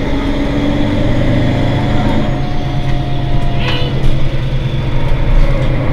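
Mercedes-Benz Citaro C2 city bus's rear-mounted diesel engine idling steadily, with a short hiss a little past halfway.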